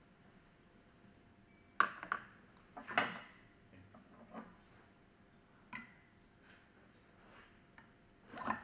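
A handful of short metal clicks and knocks, the loudest about three seconds in, as steel hand tools are handled and two pry bars are set against a centrifugal pump's coupling part and bearing bracket to lever the coupling off the shaft.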